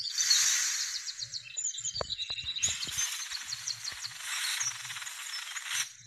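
Mustard plants rustling close to the microphone in a few bursts as leaves are brushed and the doll is handled, with rapid high chirping in the background.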